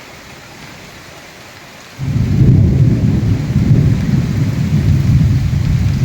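Heavy cyclone rain falling with a steady hiss; about two seconds in, a loud low rumble comes in suddenly, holds, and cuts off abruptly near the end.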